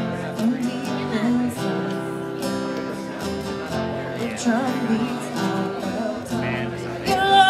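Acoustic guitar strummed in a steady rhythm, with a woman singing over it at points in a live solo performance.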